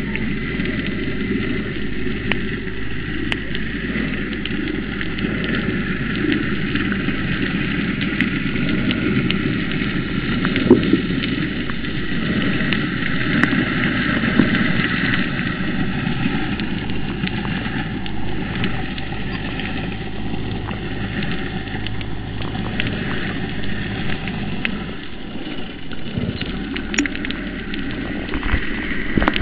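Underwater ambience: a steady crackling hiss full of scattered small clicks, over a low steady hum.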